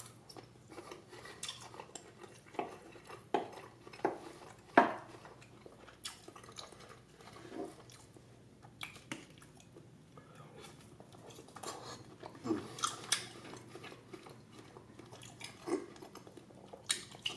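Cutlery clicking and scraping against a plate, with chewing between the clicks; the sharpest click comes about five seconds in.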